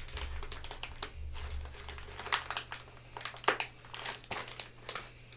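Paper wrapping around a book crinkling and crackling as it is handled and pried at to get it open, with a few sharp crackles in the second half.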